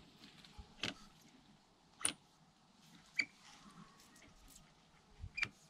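Four faint, sharp clicks, spread unevenly a second or more apart, as a KTM dirt bike's hydraulic handlebar lever is pulled and let go by hand.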